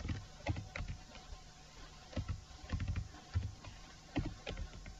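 Computer keyboard being typed on: uneven runs of individual keystroke clicks, a few per second.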